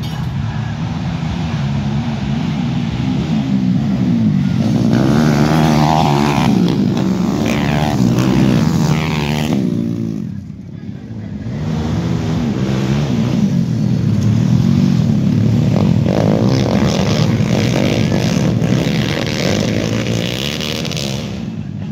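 Racing engines running hard and revving on a dirt circuit, rising and falling in pitch as they pass, with a brief lull about ten seconds in.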